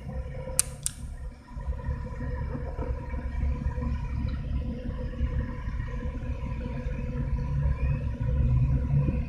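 Low steady rumble of a car engine idling, heard from inside the cabin, with two sharp clicks just under a second in; the rumble grows a little louder near the end.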